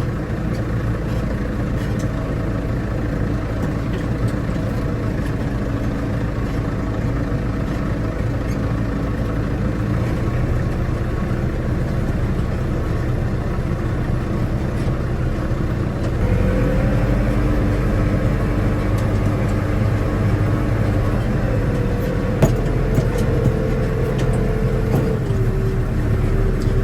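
Farm tractor engine running steadily in the field. About two-thirds of the way through it runs louder and deeper, and a few sharp knocks come a few seconds later.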